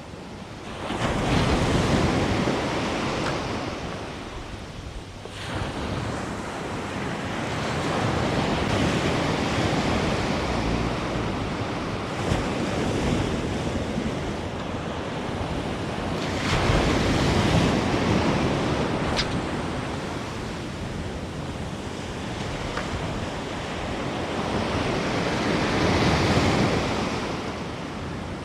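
Sea surf breaking and washing up the beach, swelling and fading in slow surges every several seconds, with wind buffeting the microphone.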